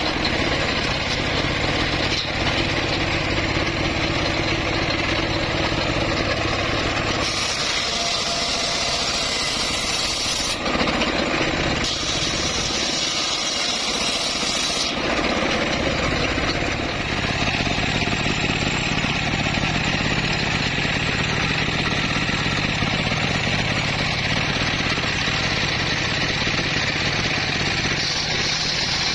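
Home-built bandsaw running steadily while sawing teak, a continuous machine drone with sawing hiss. Twice in the middle the low drone fades and a brighter hiss takes over for a few seconds.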